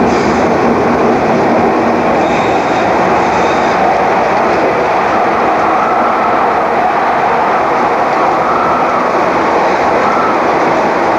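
Docklands Light Railway P86 light-rail car running at speed on elevated track, a steady running noise of wheels and train heard from inside the front of the car.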